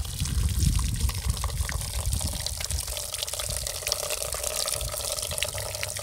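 Water trickling and dripping out of bullet holes in plastic gallon water jugs, spattering onto a wooden bench and the ground, with many small ticks of drops, under a steady low rumble.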